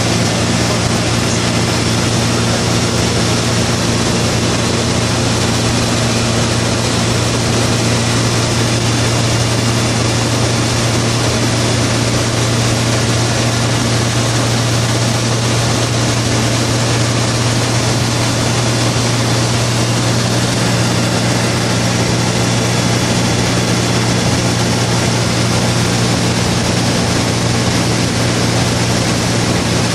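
Single-engine light aircraft in level flight, heard from inside the cockpit: a steady low engine and propeller drone over a broad hiss of airflow, unchanging throughout.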